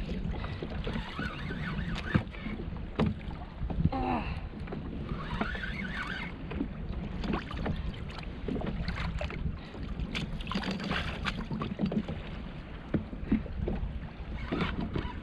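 Wind buffeting the microphone and water moving against a kayak, with scattered clicks and knocks throughout.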